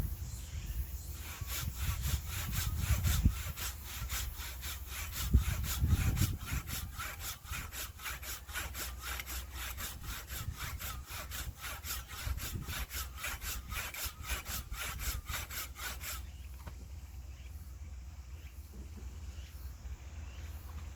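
Hand saw cutting through firewood in a steady rhythm of about three strokes a second. The strokes stop about three-quarters of the way through. A low rumble sits under the first few seconds.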